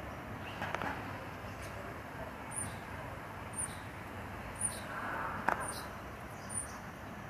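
Steady rumble of a distant approaching Metro-North commuter train, with a short high chirp repeating about once a second from about two and a half seconds in and a single click about five and a half seconds in.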